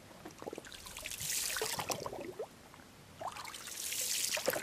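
Water lapping and gurgling against the shore in two washes, each lasting about a second and a half, with small splashes and bubbling.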